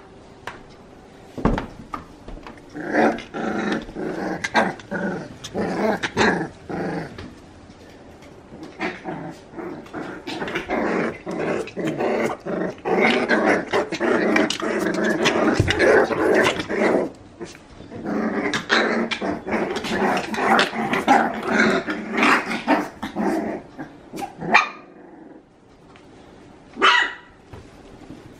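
Five-week-old corgi puppies growling at each other as they play-fight, with yips and barks mixed in. There are two short sharp calls near the end.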